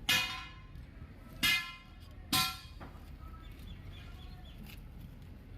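Three short honks of a vehicle horn, the first at the very start, then about a second and a half and two and a half seconds in.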